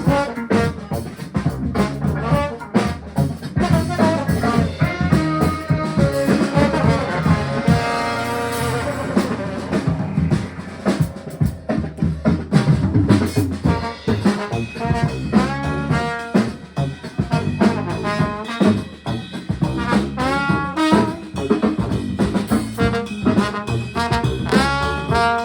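Live band jamming: brass horns playing melodic phrases over a drum kit keeping a steady beat.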